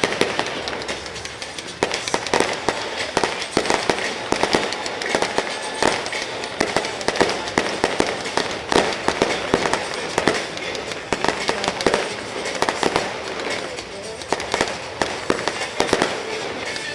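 Stadium fireworks display going off in rapid, overlapping succession: a dense, continuous run of bangs and crackles with no pause.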